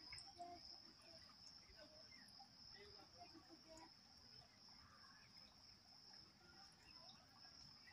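Near silence with a faint, steady high-pitched insect buzz.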